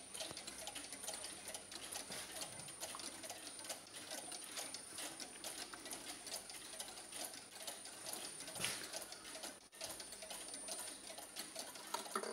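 Carved Black Forest mechanical cuckoo clock ticking steadily, its escapement clicking faintly, with one slightly louder click about two-thirds of the way through.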